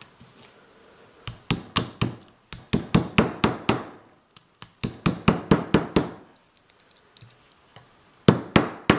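Small hammer tapping a pin into a Remington Model 8 rifle's receiver through a plastic piece held against it: runs of quick light taps, a pause, then three harder taps near the end that seat the pin flush.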